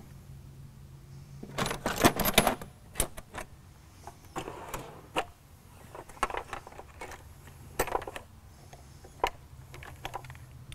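Metal tools and hardware clinking and rattling, with a dense burst of clatter about two seconds in and scattered single clicks after it, over a steady low hum.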